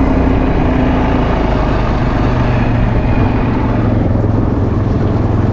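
Quad bike engine running steadily while riding, with a dense low rumble. Its note changes about two seconds in.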